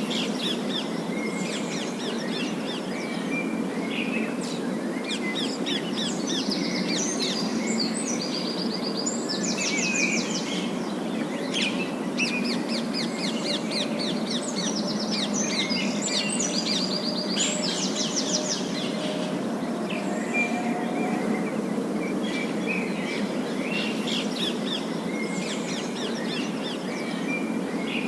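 Parakeets chirping and chattering in quick, rapid trills, in bursts with a lull near the end before they start again, over a steady low rumble of background noise.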